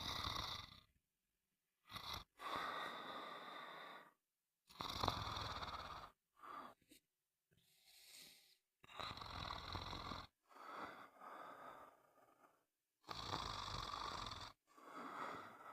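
Snoring: breath after breath, about one every two seconds, some with a low rattling vibration, separated by short gaps of silence.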